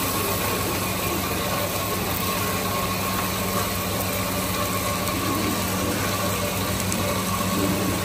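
Steady motor hum: a constant low drone with a faint higher whine, over an even hiss.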